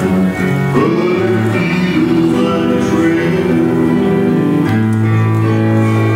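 A small acoustic band playing a slow song live: acoustic guitar, upright bass, fiddle and electric guitar, with long held notes over a steady bass line.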